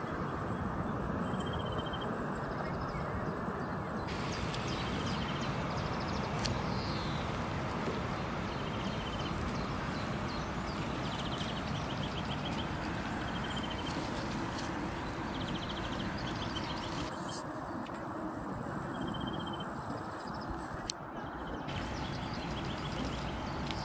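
Steady rumble of distant city traffic with small birds chirping short, high trills every second or two.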